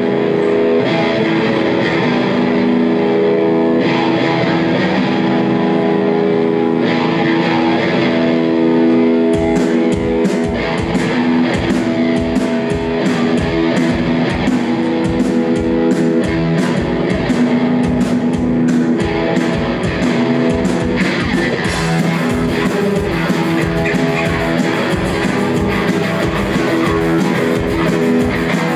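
Punk rock band playing live, heard as a loud full mix. An electric guitar rings out sustained chords alone for about the first nine seconds, then the drums and bass come in with a steady driving beat.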